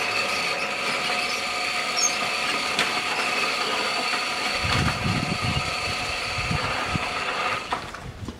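Old sliding-gate motor with worn, damaged mechanics running under power, a steady high-pitched whine or squeal as the gate slides open. Low rumbling knocks join about halfway through, and the whine cuts off near the end.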